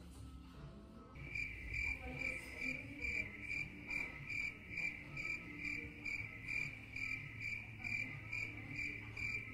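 Cricket chirping steadily in an even rhythm of about three chirps a second, starting about a second in, over a faint low room hum.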